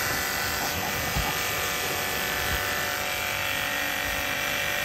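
Small electric pressure washer running steadily: its motor and pump buzz while the water jet hisses against a motorcycle's rear wheel.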